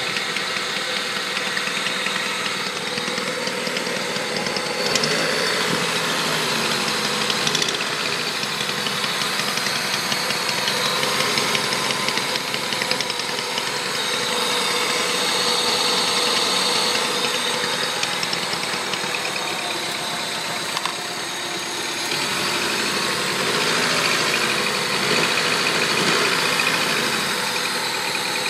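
Honda Civic D16Z6 SOHC four-cylinder engine running with a fast ticking or clicking, which the owner traces to cylinder 4 after a head replacement and valve adjustment; the level swells and eases a few times.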